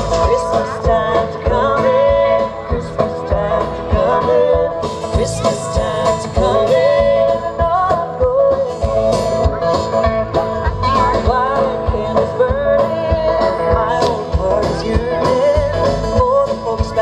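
Live country-rock band playing a Christmas song through a PA: guitars over a steady drum beat.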